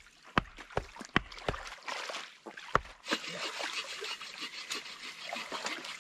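Sharp knocks of wooden stakes being pounded into a creek bed, four in quick succession, then one more about a second later. After that comes the steady trickle of a shallow creek with light rustling.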